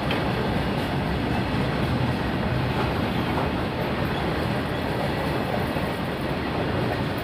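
A long freight train's open-top wagons rolling past on steel rails, their wheels making a steady, unbroken running noise.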